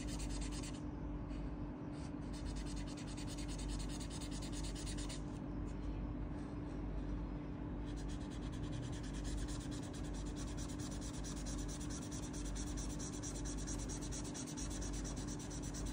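Felt-tip marker rubbing back and forth on paper in quick, continuous strokes while colouring in, with a steady low hum underneath.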